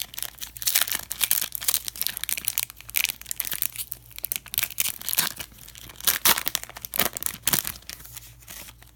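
Plastic wrapper of a Panini Prizm football card pack being torn open and crinkled, a dense run of crackling rips and rustles that dies away at the end.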